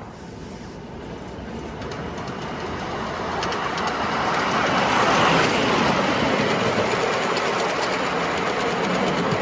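5-inch gauge ride-on miniature train running along the track, growing louder over the first five seconds, then holding steady.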